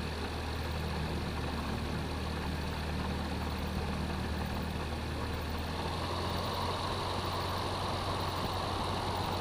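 Small airplane's piston engine running steadily at low power while taxiing onto the runway before the takeoff run. About six seconds in, the low drone shifts and a higher hiss grows louder.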